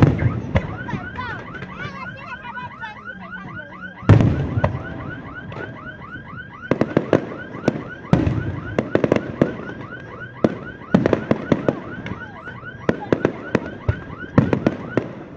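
Fireworks shells bursting overhead in sharp bangs and crackles, loudest at the start, about four seconds in, and in clusters in the second half. Over them runs a fast, regular warbling tone of about five sweeps a second that stops shortly before the end.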